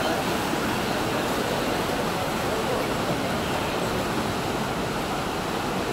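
Swimmers' butterfly strokes splashing through the pool during a sprint race, heard as a steady, even wash of water and crowd noise echoing in the indoor pool hall.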